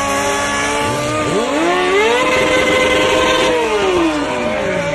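Sport motorcycle engine running, then revved hard about a second in, held at high revs for over a second, and let fall back.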